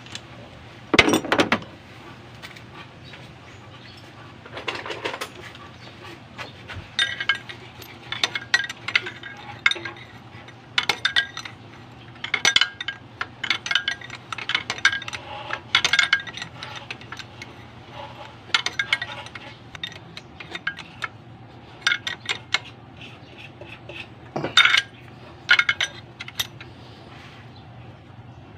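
A steel timing chain and a hand tool clinking against the camshaft sprocket of a Nissan GA16 engine as the chain is fitted, in irregular bursts of light metallic clinks.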